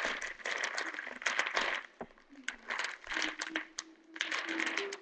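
Clear plastic wrapping crinkling and rustling as hands handle it, in uneven bursts with short pauses.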